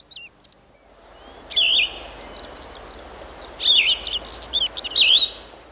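Songbirds singing in several short bursts of quick rising and falling chirps and whistles, over a steady hiss.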